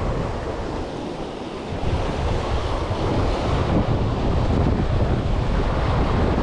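Wind buffeting the microphone over the steady wash of sea waves. The wind eases briefly about a second in, then picks up again.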